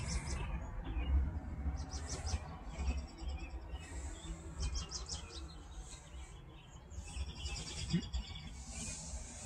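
Small birds chirping in several quick runs of short, repeated high notes, over a low steady rumble.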